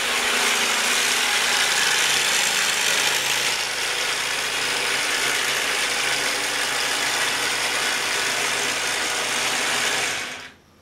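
Long-arm quilting machine running steadily, a dense mechanical noise that cuts off suddenly near the end.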